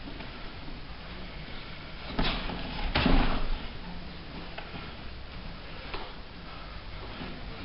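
Taekwon-Do sparring in padded gear: two dull impacts about two and three seconds in, the second the louder, over steady room noise.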